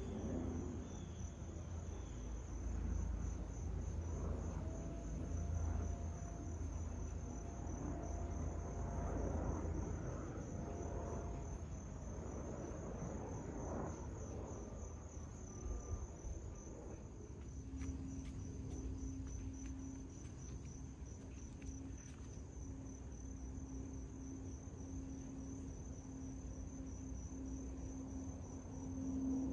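Crickets trilling steadily in a high, finely pulsing chirr over a low rumble. A low steady hum joins about two-thirds of the way in.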